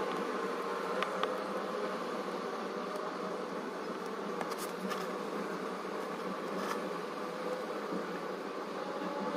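A steady buzzing drone, with a few faint light clicks over it.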